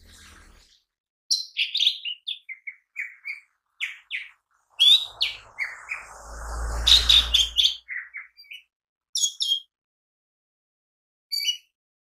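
Lesser green leafbird (cucak ijo mini) singing vigorously: short, rapid phrases of varied high chirps and whistles, separated by brief pauses, as it runs through its repertoire. A low rumbling noise sits under the loudest phrase near the middle.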